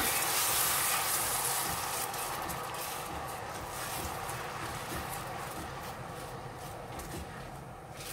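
Milk sizzling as it hits hot melted butter and sugar in a stainless steel pan. The hiss is loud at first and fades steadily as the milk heats, with scattered small crackles.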